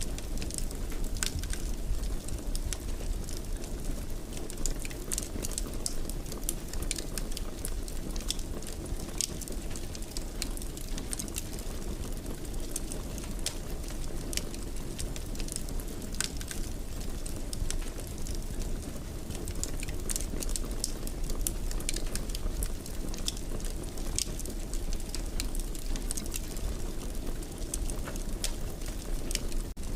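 Fire crackling in a fireplace: a steady low rumble of flames under frequent small, irregular pops and snaps.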